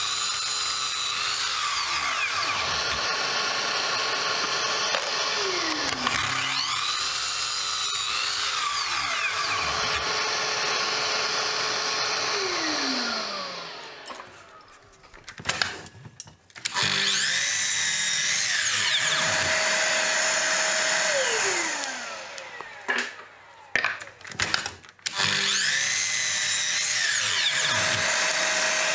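Sliding mitre saw cutting oak blocks four times. Each time the motor runs, its whine dips as the blade goes through the wood, then winds down with a falling tone. In the two short pauses between cuts there are a few clicks of the wood being handled.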